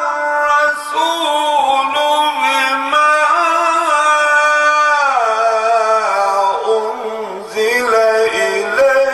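A man chanting Quran recitation in long, drawn-out melodic notes with wavering ornaments. The pitch slides lower about halfway through and climbs again near the end.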